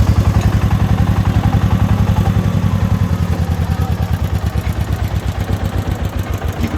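Single-cylinder diesel engine of a công nông farm truck chugging steadily, an even beat of about eight pulses a second.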